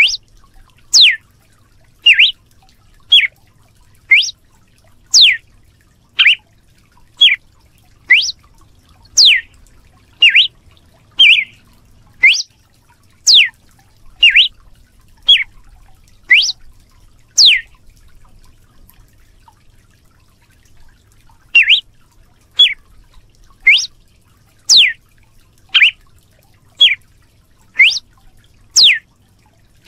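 Red-cowled cardinal (galo-de-campina) calling: short whistled notes, each sweeping steeply in pitch, some up and some down, repeated about once a second. The notes stop for about four seconds past the middle, then resume.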